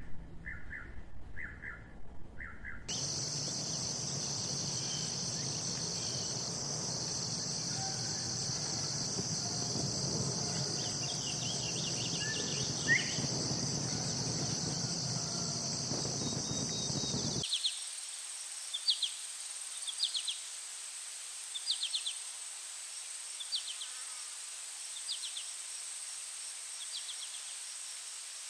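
Insect ambience: a steady high insect drone over a low background rumble. About 17 seconds in it switches abruptly to a thinner high insect tone with short chirps repeating every second and a half or so. Short pulsing calls repeat at the very start.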